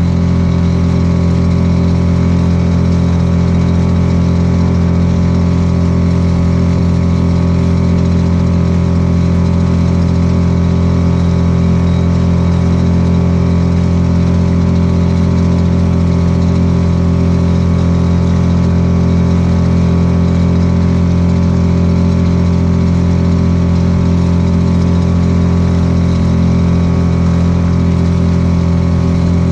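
Small outboard motor on a Sportspal canoe running at a steady cruising speed, its pitch and loudness unchanging.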